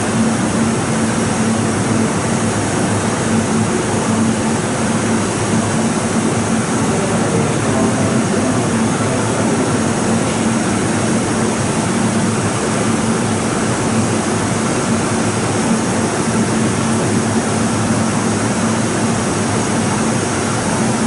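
Steady rumbling noise with a constant low hum, even in level throughout, with no distinct knocks or passing events.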